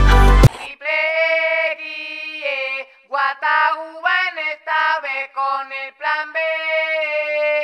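A solo voice singing a slow, unaccompanied tune of long held notes with short breaks between phrases. A loud pop track with a heavy beat cuts off about half a second in.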